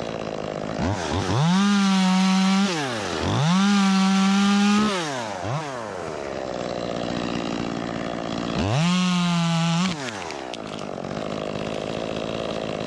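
Ported Echo 25T (CS-2511T) top-handle two-stroke chainsaw revving from idle up to full throttle and holding it for a second or two, three times, with a short blip in between, and dropping back to idle each time.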